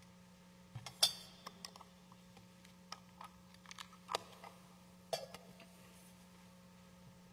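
Metal altar vessels, a gold ciborium and chalice, clinking and knocking as they are handled and set down on the altar. The sharpest clink, with a brief ring, comes about a second in, and another about five seconds in, with lighter clicks between. A steady low hum runs underneath.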